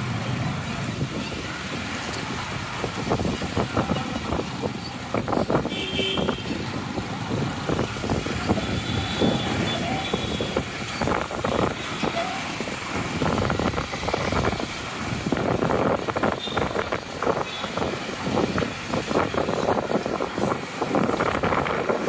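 City road traffic heard from a moving vehicle: motorcycle and car engines running and tyre noise, with a couple of brief high-pitched tones about six and nine seconds in.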